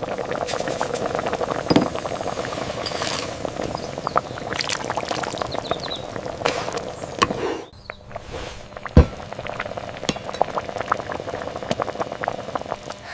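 Liquid bubbling at a boil in a cooking pot, a dense steady crackle with scattered small clinks. It breaks off briefly nearly eight seconds in, and a single loud thump comes about nine seconds in.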